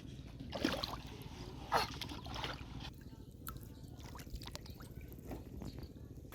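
Water splashing and sloshing in a river as someone wades and grabs for fish by hand, with two louder splashes about half a second and two seconds in, over a steady low rumble.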